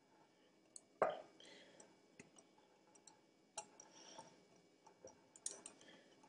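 Corkscrew being twisted into the cork of a beer bottle: faint scattered clicks and creaks, with one louder knock about a second in.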